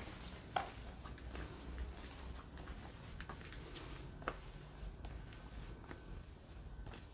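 Scattered footsteps and small clicks over a steady low rumble, with the sharpest clicks about half a second in and again a little after four seconds.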